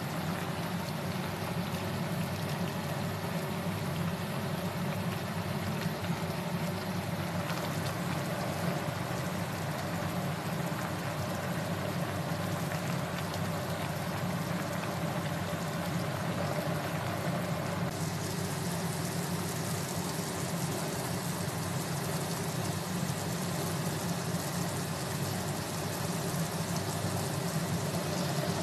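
Steady low hum with a hiss over it, unchanging in level; the hiss turns brighter about two-thirds of the way through.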